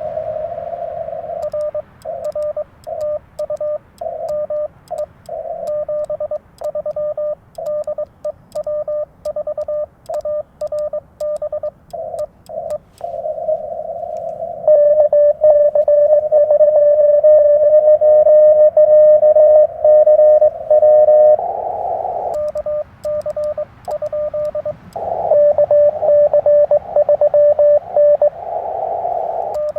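Morse code (CW) tones from a Yaesu FT-891 transceiver: a single-pitched beep keyed on and off in dots and dashes, with a louder stretch of steadier code in the middle and a slightly different-pitched signal in short bursts near the end.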